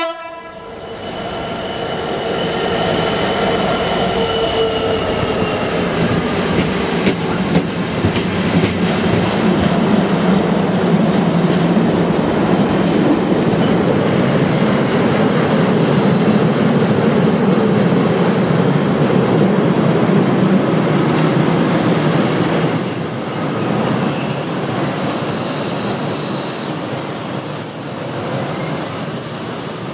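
Two Class 66 diesel locomotives passing. The tail of a horn blast comes at the very start, then their two-stroke V12 engines' note falls in pitch as they go by. A long rake of double-deck car-carrier wagons follows, rumbling and clattering over the rail joints, with high wheel squeal setting in about three-quarters of the way through.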